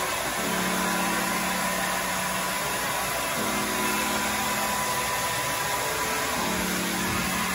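Handheld hair dryer running steadily, a rush of blown air with a low hum in it that fades in and out.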